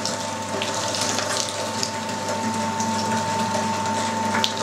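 Electric meat grinder running steadily with a constant whine, grinding fatty pork through its coarsest (20 mm) plate.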